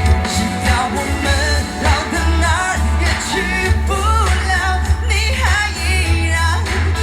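Pop song with a singing voice over a steady, heavy bass line.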